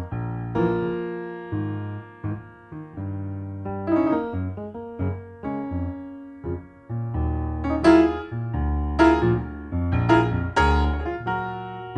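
Recorded music: piano playing, with strong low notes under a run of struck notes. The playing grows louder and busier in the second half.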